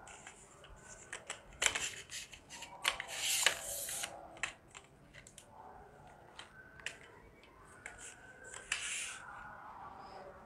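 Aluminium camera tripod being unfolded and its telescoping legs pulled out by hand: scattered clicks of the leg locks and scraping slides of the metal tubes, the loudest a rasping rush about three seconds in.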